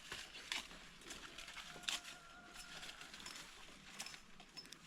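Faint outdoor background with scattered small clicks and rustles, a slightly louder tick about two seconds in, and a faint thin steady tone for a second or so in the middle.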